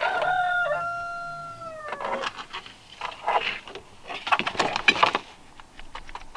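A rooster crowing once: a long, held call that slides down in pitch at the end. It is followed by a couple of seconds of short, scratchy, clattering sounds.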